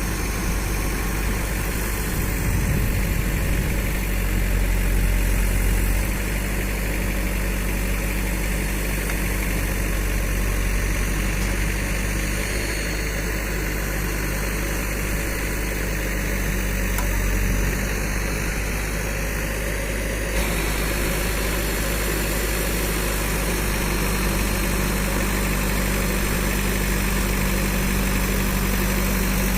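Heavy diesel machine engine idling steadily, with a low, even hum.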